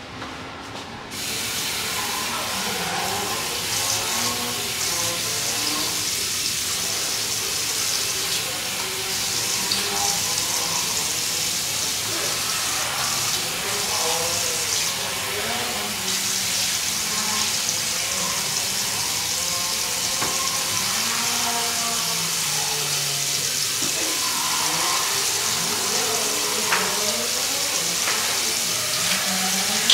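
Water running steadily from a tap into a sink, starting about a second in.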